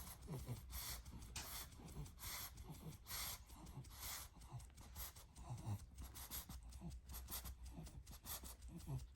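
A sleeping pug breathing noisily, with faint hissy breaths a little under a second apart and short low snorts among them.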